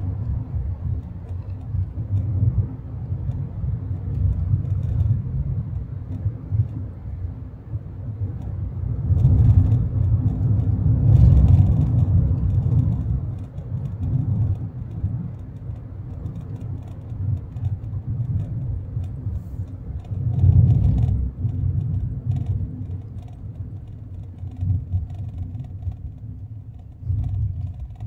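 Car driving, heard from inside the cabin: a low road and engine rumble that swells and eases, loudest from about nine to thirteen seconds in and again briefly about twenty seconds in.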